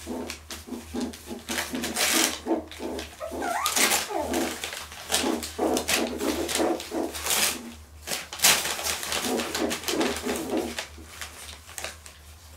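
Cotton de Tulear puppy pawing and chewing at newspaper: repeated crinkling and rustling of paper, with short whimpers and grunts from the puppies in between.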